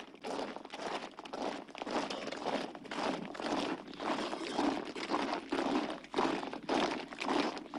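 Crunching footsteps of a column of men marching, an uneven tread of many feet.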